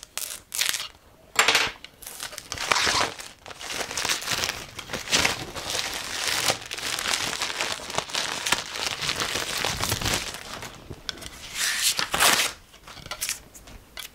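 Wrapping being torn and crumpled off new wooden chopping boards: irregular crinkling and tearing, a few short rips at first, then nearly continuous rustling.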